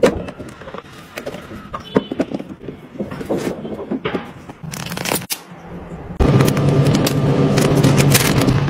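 Clicks, taps and crinkling of hard plastic being handled as the clear hinged lid of a plastic storage box is opened and shut. About six seconds in, a louder steady sound with a low hum starts suddenly.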